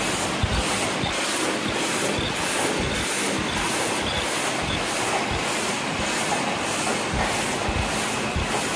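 Several high-speed paper cup forming machines running together: a steady, dense mechanical clatter with a regular, fast beat.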